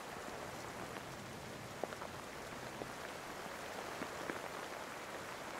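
Steady rain falling, an even hiss with scattered small drips ticking through it.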